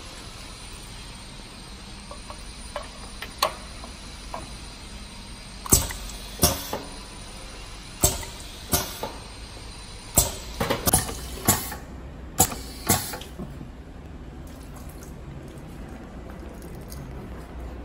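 Pneumatic piston filling machine worked by hand: about a dozen sharp clacks as its air cylinder drives the piston back and forth, coming faster near the middle, over a steady background hum.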